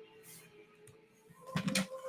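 Faint steady background music, then a short run of sharp clicks and rustling about one and a half seconds in.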